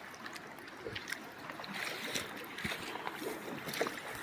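River water running and lapping, with scattered small splashes and light knocks.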